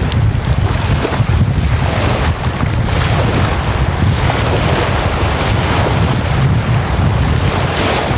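Small wind-driven lake waves breaking and washing up a sandy shore in repeated swells every second or two, with strong wind buffeting the microphone in a constant low rumble.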